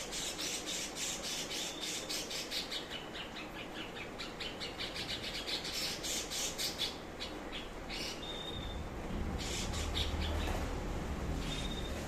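Cucak cungkok singing a fast chattering run of scratchy repeated notes, several a second. About 8 s in and again near the end it gives a short, clear, high whistle. A low rumble runs underneath from about 9 s on.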